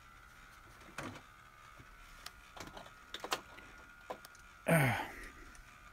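Faint clicks and light knocks of model train locomotives and cars being picked up and set down on an HO-scale layout. About three-quarters of the way through there is a short breathy sound that falls in pitch.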